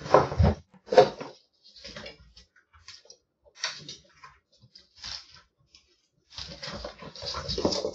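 A cat climbing about inside a wire pet cage: irregular knocks and rattles of the metal frame, two loud ones within the first second and a longer spell of rattling near the end.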